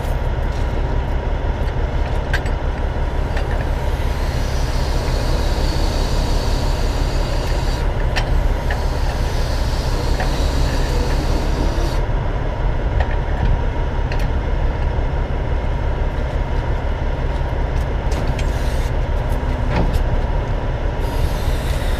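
Heavy diesel truck engine idling steadily, with a few light clicks and knocks.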